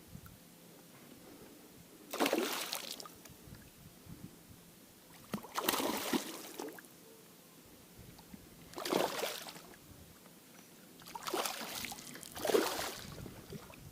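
Water sloshing and splashing in five short bursts a few seconds apart, the last two close together.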